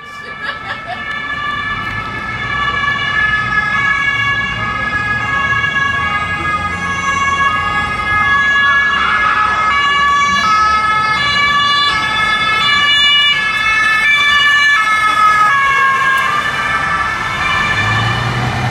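German police patrol car's two-tone Martinshorn siren sounding, stepping back and forth between a high and a low note, with the car's engine and road noise running underneath. The siren fades near the end.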